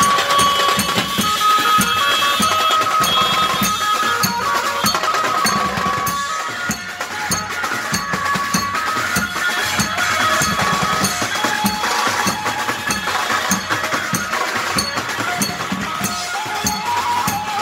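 A live procession band plays a fast, steady drum beat on a set of chrome-shelled drums with cymbals, with an amplified melody line played over it through horn loudspeakers.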